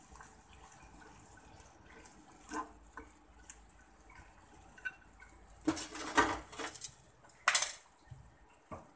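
Spoon scraping and knocking against a frying pan as sliced beef and vegetables are stirred, over a faint hiss of the simmering sauce. Scattered light clicks, then two loud scraping passes about six and seven and a half seconds in, and a short knock near the end.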